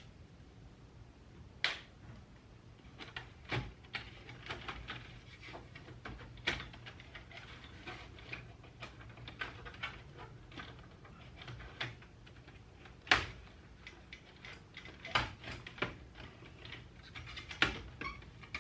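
Scattered clicks, taps and knocks of plastic dash trim and small screws being worked loose as the trim piece is unscrewed and pulled down, with a few sharper knocks about 2, 4, 6 and 13 seconds in.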